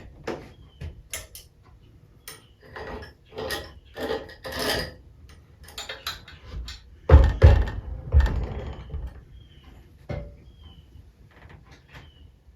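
Irregular clicks, taps and knocks of metal parts and hand tools being handled during assembly of an aluminum air engine, with a heavier cluster of knocks about seven seconds in.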